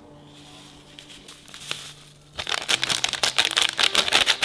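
Plastic seasoning sachet crinkling as powdered seasoning is shaken out of it over raw chicken pieces. A few soft rustles, then from about halfway in a dense run of rapid crackling.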